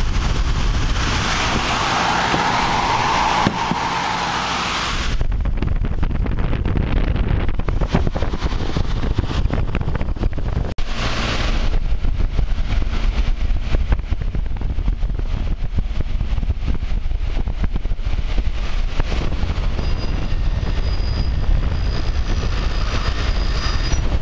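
A motor-driven buffing wheel runs with a steady low rumble. A Collins axe blade is pressed against it twice, a grinding hiss of about four seconds starting a second in and a short one about eleven seconds in, as the axe is polished and sharpened.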